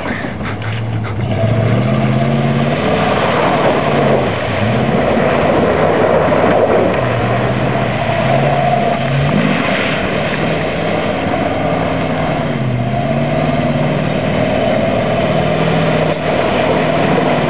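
Dodge Ram 1500 pickup's engine revving up and down again and again as its rear wheels spin through mud in two-wheel drive, with the noise of the tyres churning mud and water.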